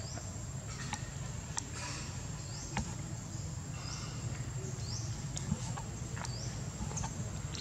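Forest ambience: a steady high-pitched insect drone over a low hum, with short rising chirps every second or so and a few faint clicks.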